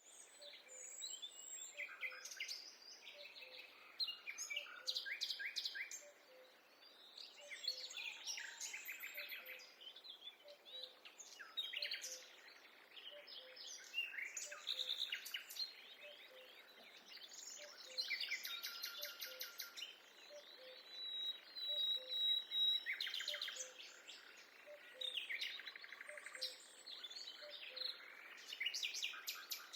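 Several forest songbirds chirping and trilling, their calls overlapping throughout, with a faint low note repeating steadily underneath.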